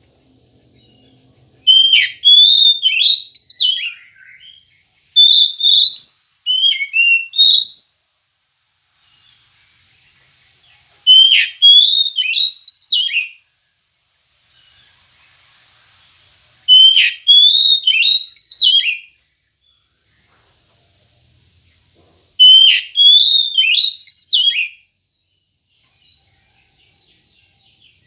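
Oriental magpie-robin (kacer) singing: five bouts of rapid, sliding whistled notes, each bout two to three seconds long, with short pauses between them.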